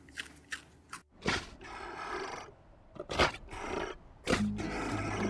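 Sea lions calling: two rough, noisy roars, the first about a second in and the second about three seconds in. Background music with steady low notes comes in near the end.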